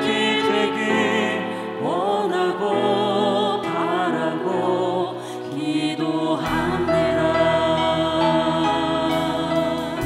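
Women's choir singing a slow Korean worship song in unison with vibrato, over a sustained instrumental accompaniment; a deeper bass note comes in past halfway.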